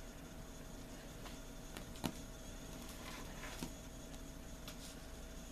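Faint rustling and a few light taps close to the microphone, with one sharper click about two seconds in, over a quiet room's steady low hum.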